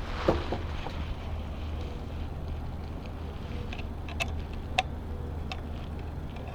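A few light metallic clicks and taps of small bolts and parts being handled during bike work, over a steady low hum.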